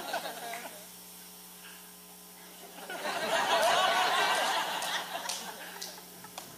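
Congregation laughing for a couple of seconds, starting about three seconds in, over a steady electrical hum.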